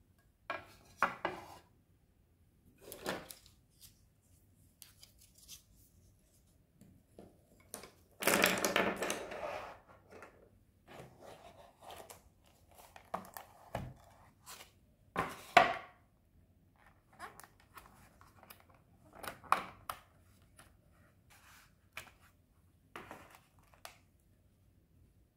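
Painting supplies handled on a wooden table: a plastic paint palette and brushes set down and moved, giving scattered knocks, clicks and rustles, with a longer rustling scrape about eight seconds in.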